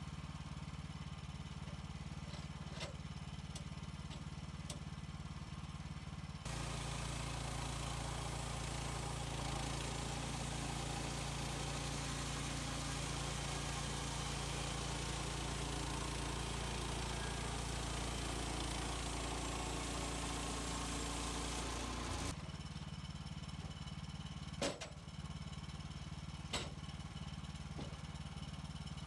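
HM130 Max bandsaw sawmill's gas engine idling, then running up at about six seconds in and cutting through a white pine log for about fifteen seconds before dropping back to idle. Two sharp knocks follow near the end.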